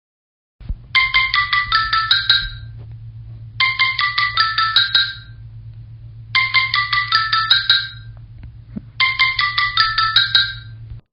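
Marimba-style phone ringtone: a quick phrase of about a dozen mallet notes, repeated four times with short gaps between, over a steady low hum.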